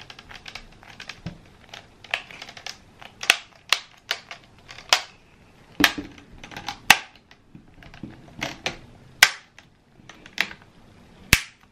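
Plastic laptop screen bezel being pressed onto the display lid, its clips snapping into place in a run of irregular sharp clicks, some louder than others.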